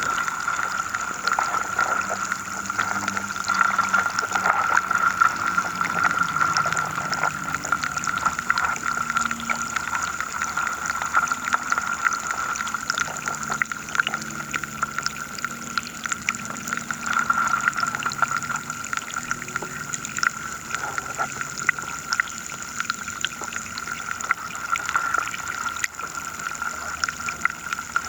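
Underwater sound of a river heard from below the surface: a continuous watery hiss with a steady high tone and many small crackling clicks, over faint low hums that come and go.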